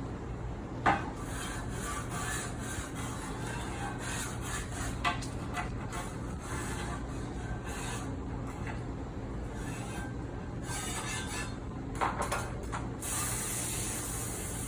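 Kitchen items being washed in a metal-lined sink: scraping and rubbing with scattered clanks against the metal, the sharpest about a second in and a cluster near the end, over a steady low hum. A hiss comes in near the end.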